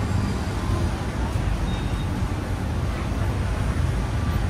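Steady urban background noise: a continuous low engine and traffic rumble with indistinct voices mixed in.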